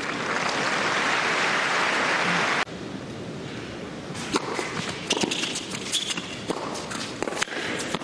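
Crowd applauding for about two and a half seconds, cut off abruptly. Then a run of sharp knocks: a tennis ball being bounced and struck with rackets during play.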